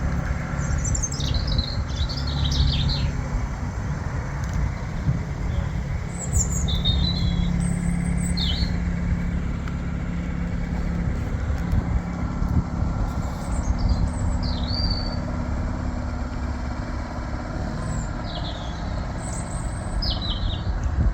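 Narrowboat engine running steadily at cruising, with small birds chirping in short bursts several times over it.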